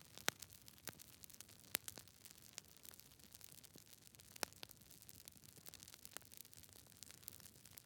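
Wood fire crackling: faint, irregular sharp pops and snaps over a soft steady hiss. The loudest pops come about a third of a second in, near two seconds in, and about four and a half seconds in.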